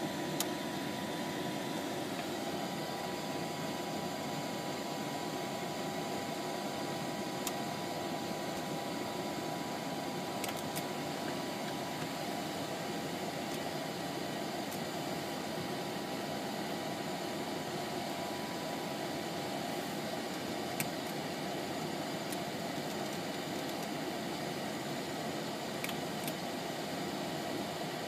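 Hawker 750's auxiliary power unit running steadily with a constant rush of air and a faint steady whine, and a few short clicks. No engine spools up: the engine start fails.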